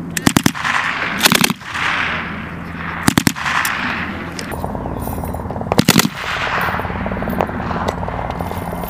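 M240 machine gun (7.62×51mm, belt-fed) firing four short bursts of a few rounds each, about a second in, near three seconds and near six seconds. Each burst is followed by an echo that fades out.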